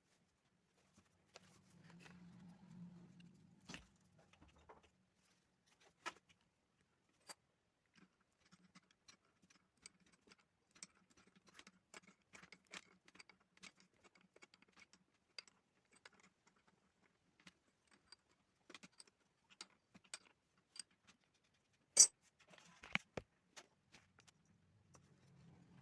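Faint, irregular small clicks and taps, with a brief low hum a few seconds in and one sharp click near the end.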